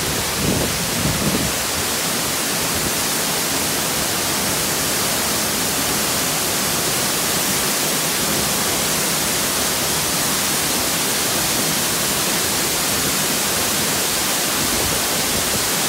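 Steady rush of a cascading mountain waterfall and the rocky stream below it, with a couple of brief low bumps about a second in.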